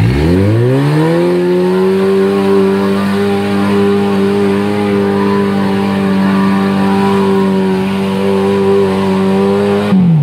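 Engine of an off-road 4x4 revving up within the first second, then held at high, steady revs for about nine seconds, dropping off near the end.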